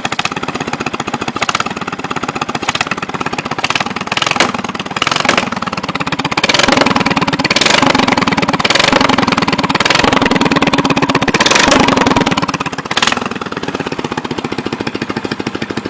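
Small racing lawn mower engine running, blipped briefly a few times, then held at higher revs from about six seconds in before dropping back to a lower idle near thirteen seconds.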